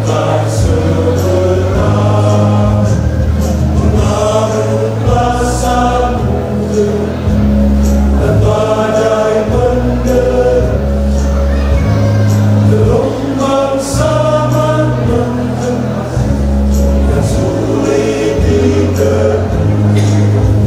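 A church choir singing a Christian song over instrumental accompaniment with a deep, sustained bass line.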